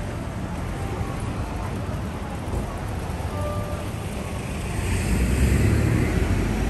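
Busy city street traffic: a steady rumble of passing cars, swelling as a vehicle passes close about five seconds in.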